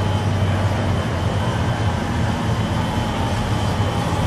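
1969 Pontiac GTO's 400 cubic-inch Ram Air III V8 running steadily and low-pitched as the car rolls slowly past at low speed.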